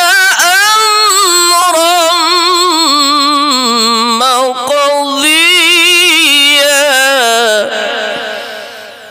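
Male qari reciting the Quran in the melodic mujawwad style, drawing out a long ornamented phrase that rises and falls in pitch with fast vibrato. The voice trails off over the last second or so.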